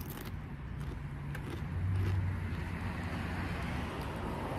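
Chewing a crunchy Smith's chilli potato chip, with a couple of short crunches near the start and about a second and a half in. Under it a low steady rumble swells about two seconds in and then eases.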